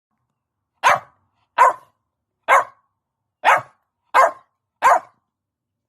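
Staffordshire bull terrier puppy barking six times, short sharp barks about one a second.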